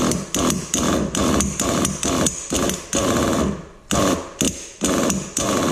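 Nitro RC engine cranked over and over with its pull starter, about two yanks a second with a short break partway: each pull spins the engine up with a sharp start and a falling whir, but it does not catch, which the owner puts down to a probable lack of fuel.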